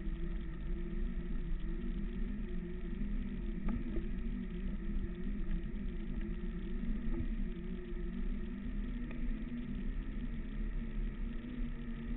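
Segway x2's electric drive running as it climbs a dirt track: a steady whine from the motors and gearboxes whose pitch wavers with speed, over a low rumble, with a few short knocks from the rough ground.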